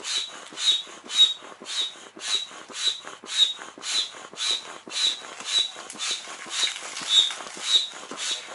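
Manual air pump inflating a PVC inflatable boat's air chamber, about two strokes a second, each stroke a hiss of air with a short high whistle.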